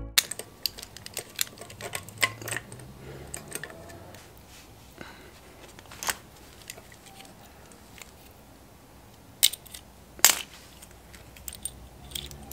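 Small metal clicks and taps of a carburetor and its throttle linkage being worked off a small engine's intake by hand, with two sharper knocks about ten seconds in.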